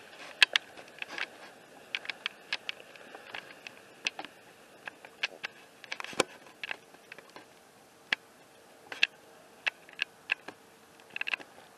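Scattered sharp clicks and crackles at irregular spacing, about one or two a second, from a person moving about with a handheld camera: footsteps and handling noise.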